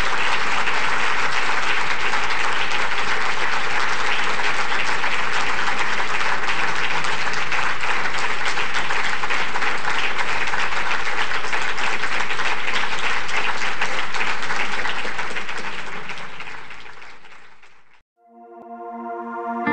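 Lecture-hall audience applauding steadily, the applause fading out from about fifteen seconds in. Near the end, closing music with plucked notes begins.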